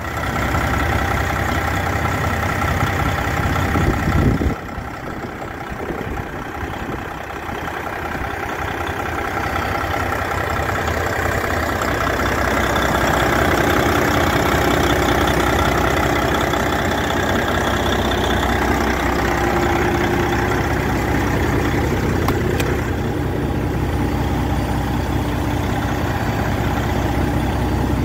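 Freightliner ST120 truck's Detroit Diesel Series 60 six-cylinder diesel idling steadily, heard close with the hood open. A louder rush over the first four seconds or so cuts off suddenly, leaving the even idle.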